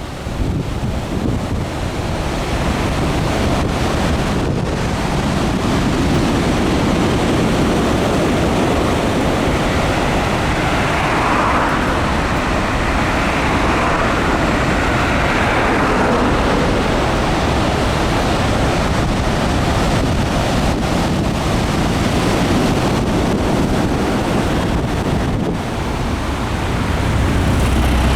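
Heavy typhoon swell surging and breaking on the shore as a continuous roar, with a bigger wave surging up about ten seconds in for several seconds. Wind buffets the microphone.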